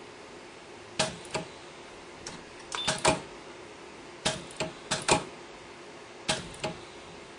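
Micro resistance weld head with a parallel-gap electrode cycling as it welds fine 40-gauge wire onto stainless steel disks: sharp mechanical clicks, mostly in close pairs, in four bursts a second or two apart, as the electrode comes down and lifts off for each weld. A steady low hum runs underneath.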